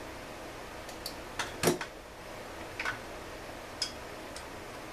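Scattered clicks and light knocks of chainsaw parts and small tools being handled during reassembly, the loudest about a second and a half in, over a steady low hiss.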